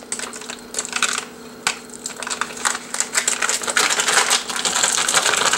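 Foil wrapper on a block of cream cheese crinkling as it is peeled open and emptied. It makes a run of quick, irregular crackles that grow denser in the second half.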